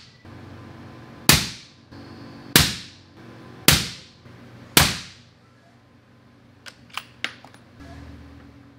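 Four suppressed shots from a 6.5 PRC bolt-action rifle fitted with an AB Raptor 8 suppressor, about a second apart, each a sharp crack with a short ringing tail. Near the end come a few light clicks.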